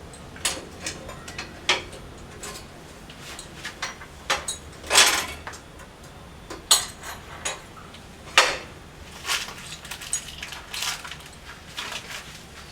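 Irregular metallic clinks and knocks of metal parts and tools being handled, with the loudest clanks around the middle.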